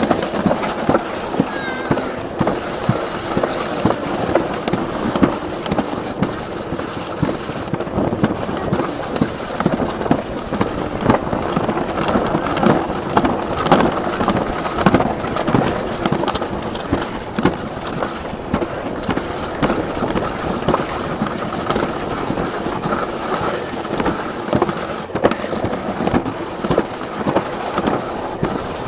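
Alpine slide sled running down the chute: a steady rattle and scrape of the sled on the track, full of small knocks and clicks.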